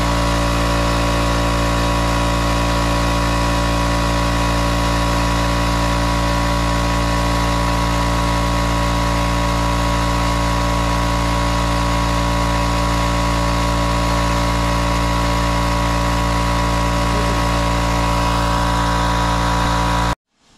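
CNC plasma cutter cutting 2 mm stainless steel sheet: a steady hiss over a pitched electrical hum. It cuts off abruptly near the end.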